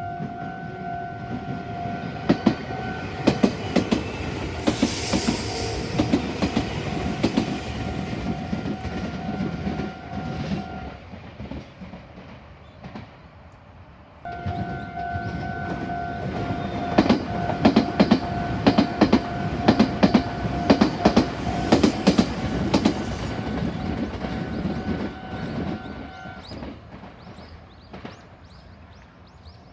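Level-crossing warning bell ringing steadily while Meitetsu trains pass, their wheels clattering rapidly over the rail joints. The bell stops for a few seconds before the first third is out, then starts again for a second train, which clatters past in turn. The bell falls silent again near the end.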